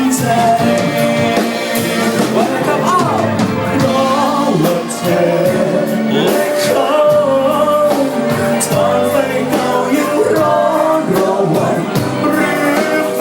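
A Thai pop song: a singer holding long, wavering notes over a band with a regular drumbeat.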